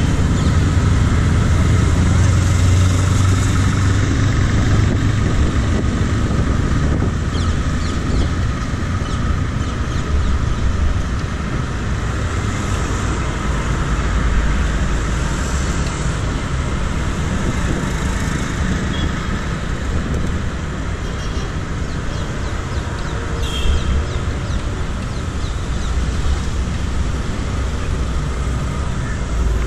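Steady road traffic noise with a continuous low rumble, heard from a moving bicycle.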